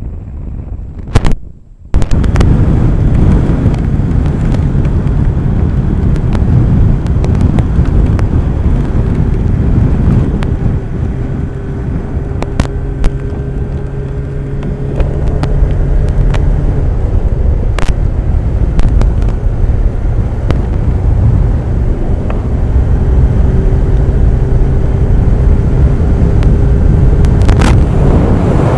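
Motorcycle riding in strong wind: heavy wind noise on the microphone, with the engine's steady hum underneath and a few sharp knocks. The noise comes in suddenly about two seconds in.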